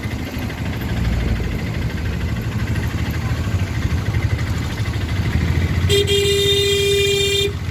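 Low, pulsing rumble of a motor rickshaw riding through town traffic. About six seconds in, a vehicle horn gives one steady blast lasting about a second and a half, then cuts off.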